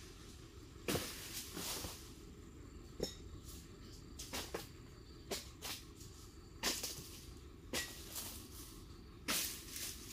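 Short, irregular rustling crunches in dry palm fronds and undergrowth, about one every second.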